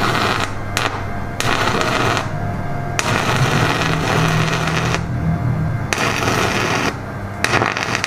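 Stick welder's arc crackling and sputtering as the electrode lays tack welds on a car's strut-tower sheet metal. The crackle breaks off briefly several times.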